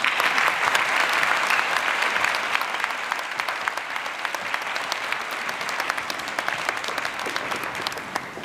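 Audience applauding in a large hall, many hands clapping at once, slowly dying down toward the end.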